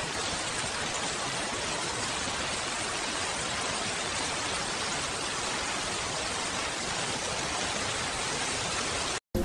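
Steady, even hiss of heavy rain, with no separate drops or thunder standing out; it cuts off abruptly just before the end.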